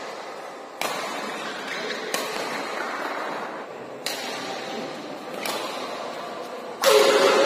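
Badminton rackets striking a shuttlecock in a doubles rally, sharp cracks about every second and a half that echo in a large hall. Near the end a harder hit comes with a loud shout.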